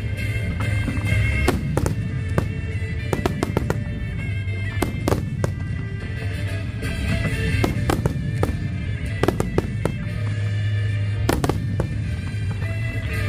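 Fireworks display: aerial shells bursting in quick, irregular bangs and crackles, over steady music.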